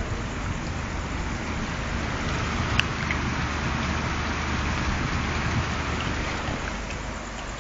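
Heavy rain falling steadily, an even hiss, with a single sharp click a little under three seconds in.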